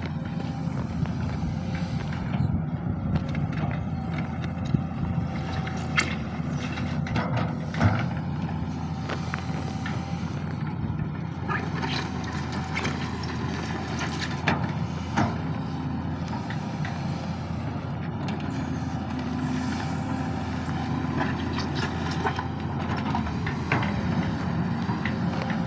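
Sany SY215C excavator's diesel engine running steadily under working load, with a few short, sharp metallic clanks scattered through.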